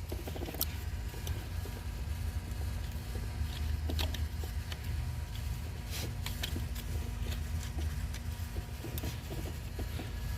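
Scattered plastic clicks and knocks of hands working a car's EVAP purge valve and its hose clips loose in the engine bay, over a steady low hum.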